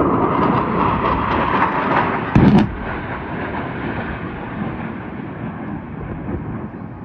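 Military jets passing overhead with a steady roar, then a single sharp pyrotechnic explosion about two and a half seconds in, the detonation of the airshow's wall of fire, followed by a lower, steady rumble.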